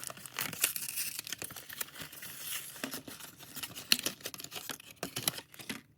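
Crinkling, crackling and tearing of plastic and card packaging as a Pokémon trading-card promo blister pack is ripped open, a dense run of sharp crackles that thins out near the end.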